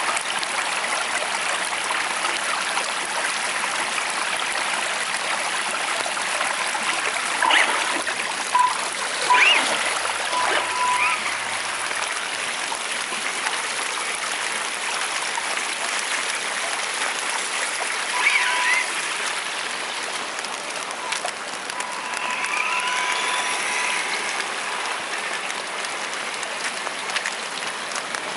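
Steady rain falling on wet pavement and puddles, a continuous hiss of water. A few brief high tones and short rising whines cut through it near the middle and again later on.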